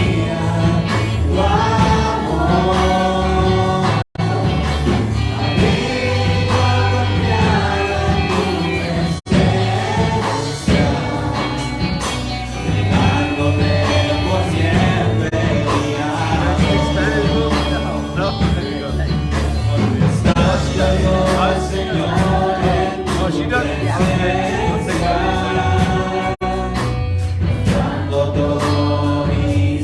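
Live gospel worship music: voices singing over a band with a steady bass, with a few brief dropouts in the sound.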